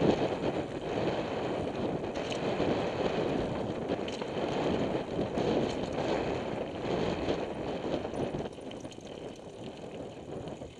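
Mountain bike riding fast down a loose stone and gravel trail: a rough, rushing noise of tyres crunching over stones with small rattles from the bike, easing off near the end.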